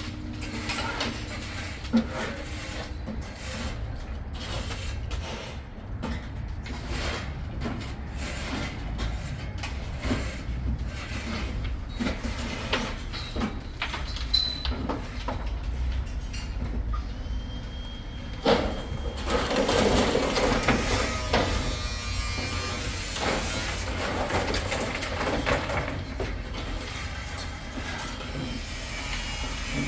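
Construction noise: a steady low rumble under a string of knocks and clanks, a sharp bang about eighteen seconds in, then several seconds of louder, rough tool or machine noise.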